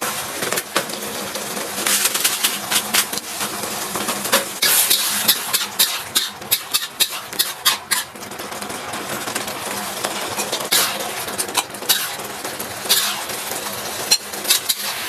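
Food stir-frying in a pan with a steady sizzle, while a metal spatula scrapes and clacks irregularly against the pan.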